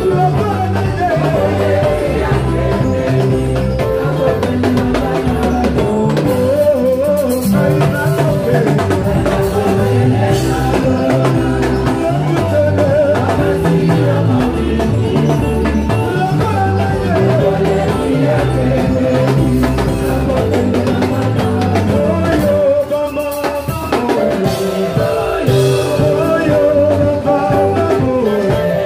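Live church praise band playing upbeat worship music, with singing over drum kit and bass.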